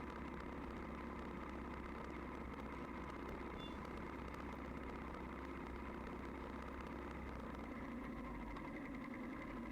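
Vehicle engine running steadily under way, a low, even hum.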